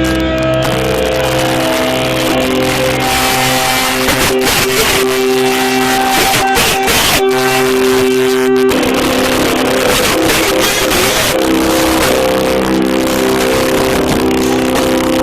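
Live band playing loud, with held electric guitar chords over pounding drums and cymbals, badly distorted in the recording; the chords change a little past halfway.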